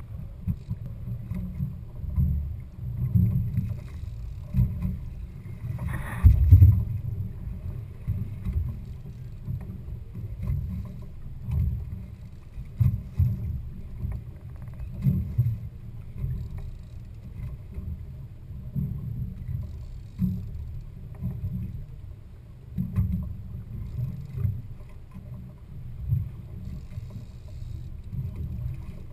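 Low, uneven rumble of a sport-fishing boat at sea, with a sharp knock about six seconds in.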